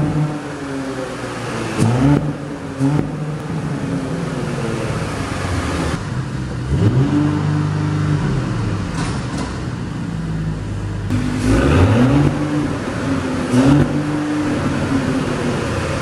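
Porsche Cayenne E3 3.0T E-Hybrid's turbocharged V6 idling and blipped with the throttle four times, the revs climbing quickly and dropping back to idle each time.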